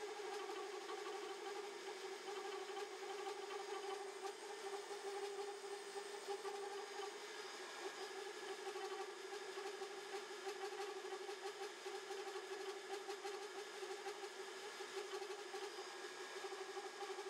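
Boring bar in a boring head cutting a pass in a truck hub's bore, giving a steady wavering hum with chatter. The vibration comes from the depth of cut and the long reach of the bar.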